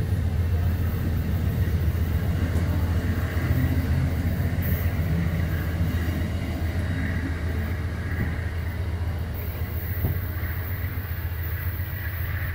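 Amtrak passenger coaches rushing past on the rails, a steady rumble of wheels on track that slowly fades as the last car pulls away.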